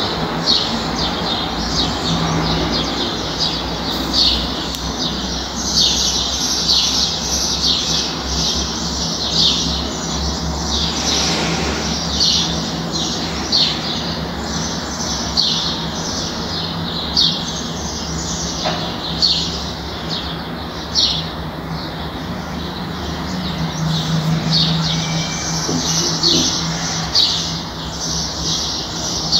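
Small birds chirping busily, many short high chirps coming several times a second without a break, over a steady low hum.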